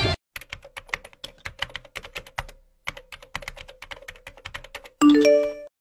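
Rapid keyboard typing clicks, a message being typed, with a short pause in the middle. About five seconds in comes a brief multi-tone chime: a phone's new-message notification.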